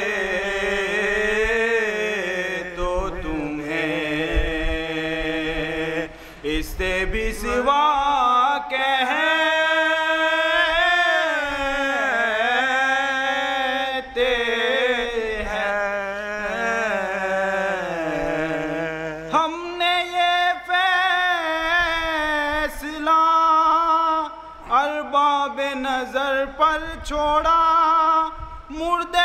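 Men chanting an unaccompanied Muharram devotional lament (salam/soz) in long, gliding held phrases. A low steady note is held beneath the melody for about the first two-thirds and then stops abruptly.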